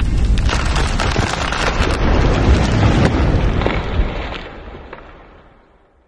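Logo-intro sound effect: a dense rumbling noise full of crackles. It fades away over the last two seconds.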